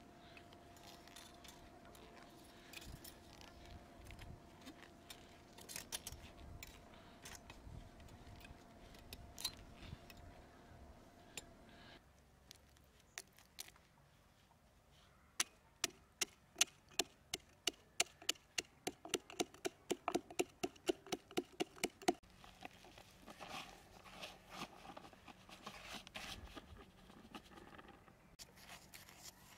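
Light clinks and scrapes of small metal parts being handled, then a fast run of sharp taps, about four a second, for six or seven seconds. Near the end comes the dry rustle of sand being poured into a small iron pot.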